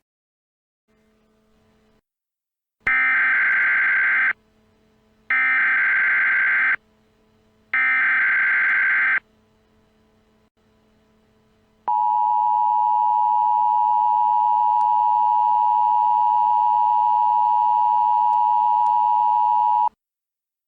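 Emergency Alert System tones: three short bursts of SAME header data, each about a second and a half long, then the steady two-tone EAS attention signal for about eight seconds, cutting off suddenly.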